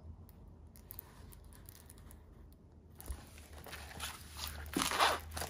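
Clear plastic cover sheet on a diamond painting canvas crinkling as the canvas is handled. It starts about three seconds in after a quiet spell, with a few louder crinkles near the end.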